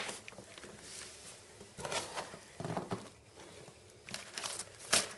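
Packaging being handled and rustling as items are lifted out of a cardboard printer box, in several short bursts, with a sharp knock near the end.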